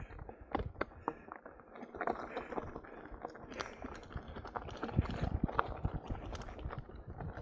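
Mountain bike rolling fast down a loose gravel track: tyres crunching over stones and the bike clattering over bumps in quick irregular knocks, with a heavier low rumble from about five seconds in as the ground gets rougher or the speed rises.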